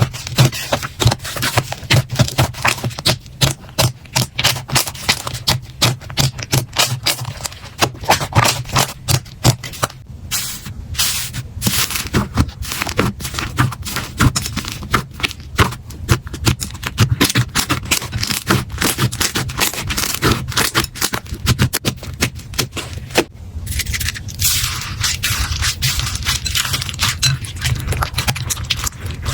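Slime being handled, with rapid, irregular clicking and crackling as it is squeezed and poked, turning to a smoother scraping sound about 24 seconds in.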